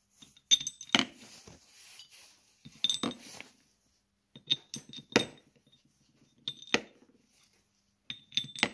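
Steel wheel studs clinking against an aluminium wheel adapter plate as they are set into its stud holes by hand: sharp metallic clinks in small clusters, about one cluster every couple of seconds.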